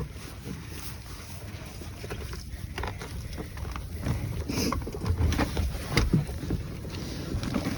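Wind rumbling on the microphone, with scattered short knocks that come more often from about halfway in.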